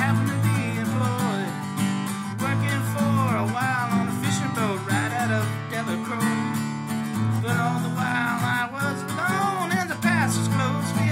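Acoustic guitar strummed steadily, with a sliding, bending melody line carried over the chords.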